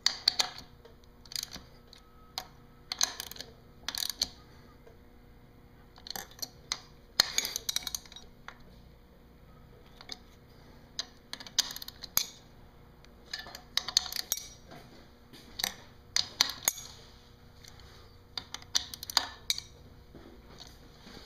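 Ratchet wrench clicking in short bursts every second or two, tightening the bolts of a seawater pump housing.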